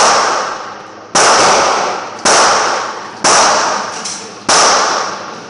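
Gunshots fired in an indoor range: five sharp, loud shots in a steady rhythm about a second apart, each followed by a long echoing decay.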